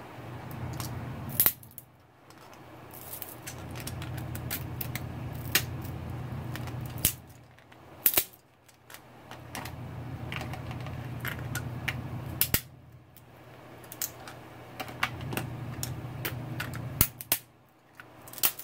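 Metal crab cracker crushing Dungeness crab claw and leg shells: about half a dozen sharp cracks and crunches spaced a second or more apart, with a low steady hum underneath.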